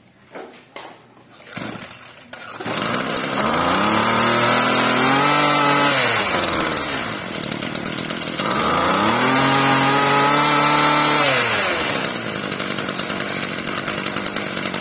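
A 26 cc two-stroke brush cutter engine starts about two and a half seconds in, firing readily. It is revved up twice, each time rising, holding briefly and falling back, then settles into a steady idle.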